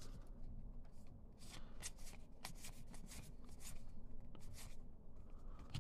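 Baseball trading cards being flipped through one by one from a freshly opened pack, card sliding against card in a run of short, faint, irregular flicks.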